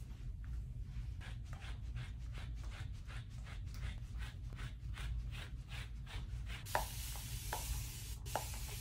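Slicker brush raking through a dog's curly coat in quick, even strokes, about three a second. About seven seconds in, a continuous spray bottle hisses out a steady mist of waterless shampoo for about two seconds.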